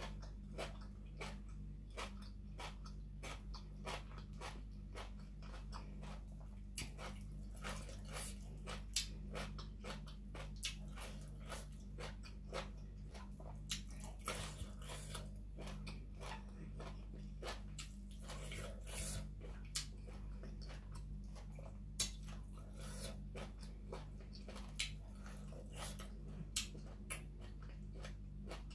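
Close-up mouth sounds of eating spicy Isan papaya salad with shrimp and vegetables: chewing, crunching and wet smacking clicks coming irregularly several times a second. A steady low hum runs underneath.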